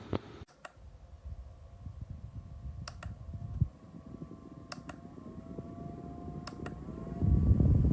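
Small battery-powered desk fan running, its airflow rumbling on the microphone and getting much louder near the end, with faint rising whines. Sharp double clicks come about every two seconds.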